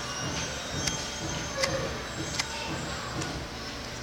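Faint background noise from a school drum and lyre band, with a few scattered sharp clicks.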